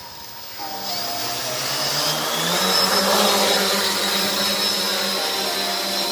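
Quadcopter's four 1000 KV brushless motors and propellers spinning up. The whine rises in pitch and grows louder over the first couple of seconds as the drone lifts off, then holds steady in a hover.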